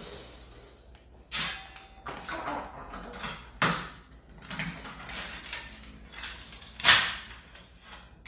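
Knife and small metal tools scraping and tapping on a stainless steel tray and on hard dalgona candy, with a few sharp knocks, the loudest about seven seconds in.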